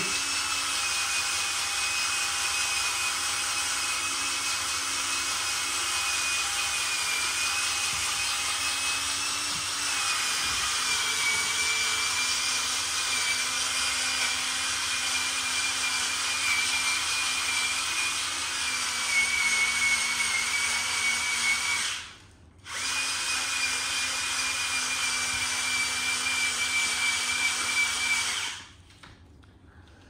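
A rotary power tool spinning a fine-grit sanding disc against floor tile: a steady motor whine with the hiss of the disc. It stops briefly a little past two-thirds of the way through, starts again, then cuts off near the end.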